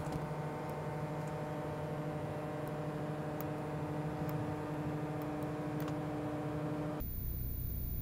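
A steady whirring hum made of several fixed pitches, with a few faint light ticks over it. About seven seconds in, the hum cuts off abruptly and a lower rumble and a very high thin whine take its place.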